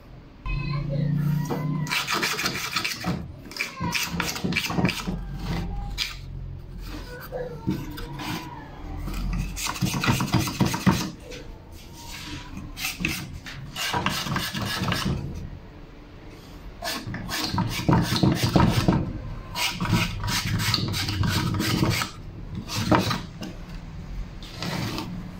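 Abrasive rubbing on scorched wood: rapid back-and-forth scraping strokes by hand over the burnt surfaces, in bursts with short pauses.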